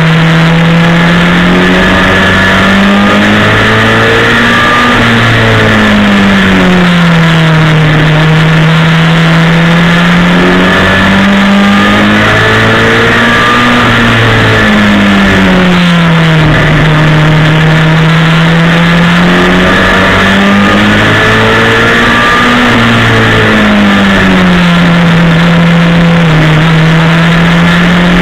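Mini stock race car's four-cylinder engine heard from on board at racing speed, loud throughout. Its pitch climbs and drops about three times, rising as the car accelerates down each straight and falling as it lifts for the turns, over steady road and wind noise.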